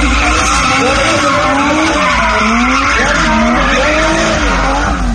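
Drift car engine revving, its pitch rising and falling again and again, over the noise of tyres skidding sideways.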